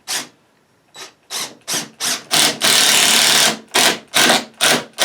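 Power screwdriver driving a construction screw into wood, run in short bursts on the trigger, about eight brief spurts with one longer run of about a second near the middle.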